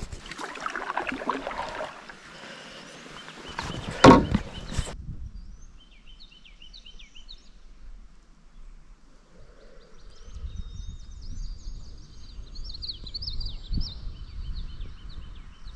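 Splashing and scraping as a canoe is worked through shallow water, with one hard knock of the hull about four seconds in, cut off suddenly. Then birds singing over a low rumble of wind on the microphone.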